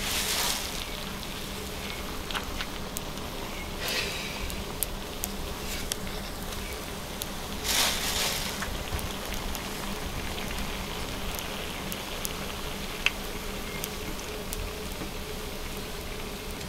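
Sausage buns sizzling and crackling as they roast, with louder hisses at the start and again about four and eight seconds in, over a faint steady hum.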